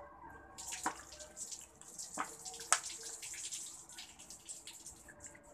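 Water pouring from an upturned plastic bottle onto a person's head and splashing down, starting about half a second in, with a few sharper splashes along the way.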